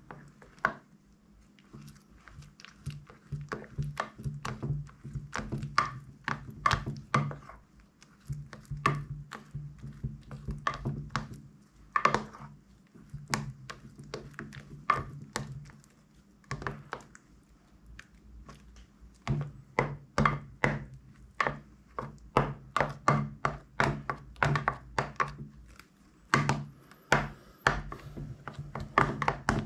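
Thick glossy slime being stirred and folded with a plastic spatula in a glass dish: a run of wet clicks, squelches and small air pops, sometimes several a second, with a few brief pauses.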